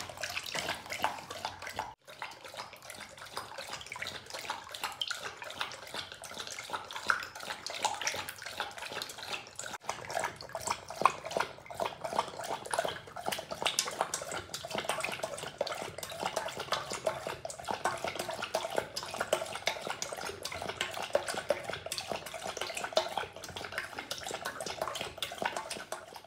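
Labrador retriever lapping water from a stainless steel bowl: a steady run of quick wet laps and splashes, broken briefly twice.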